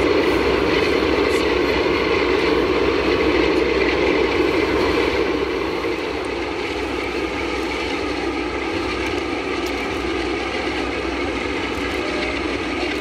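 Boeing 747-400 jet engines running steadily on the ground, a continuous rumble with a faint high whine. The level drops slightly about six seconds in.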